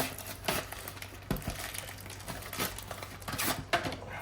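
Plastic and cardboard toy packaging crinkling and rustling as a Beyblade X pack is handled and opened, with a few light clicks and knocks.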